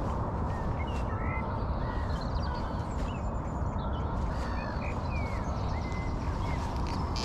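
Birds chirping and calling on and off, short rising and falling notes, over a steady low rumble.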